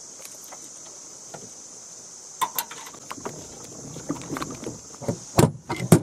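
Scattered clicks and knocks of metal trailer-hitch gear being handled. They start about halfway in and grow busier, with the two loudest knocks near the end, over a steady high-pitched drone.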